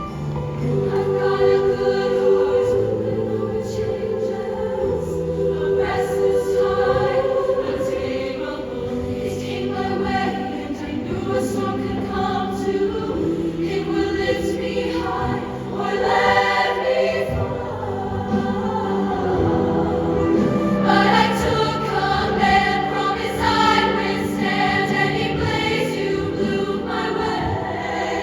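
Show choir singing in many-voiced harmony with band accompaniment, mostly held chords.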